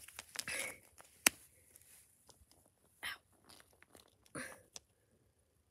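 Small plastic toy figurines handled on concrete: scattered light clicks and taps, one sharp tap a little over a second in, and two short scraping rustles about three and four and a half seconds in.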